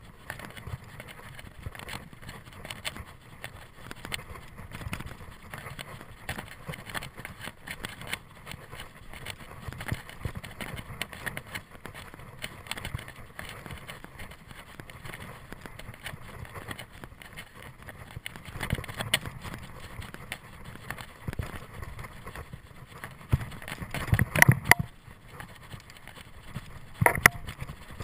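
Mountain bike rolling fast along a dirt singletrack: a steady rumble of tyres and rattle of the bike. Louder clattering knocks come about 24 seconds in and again about 27 seconds in.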